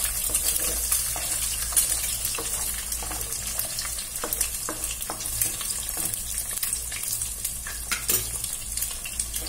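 Eggs sizzling in hot oil in a nonstick wok, with a wooden spatula scraping and tapping against the pan as the eggs are stirred and broken into pieces.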